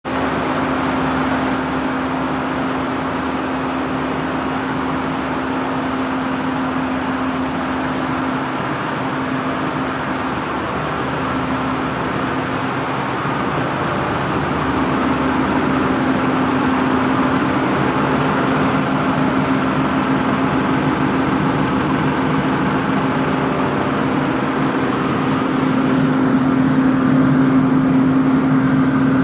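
Rice milling unit running, powered by a Mitsubishi 6D14 six-cylinder diesel engine: steady machine noise with a constant hum, getting a little louder about halfway and again near the end.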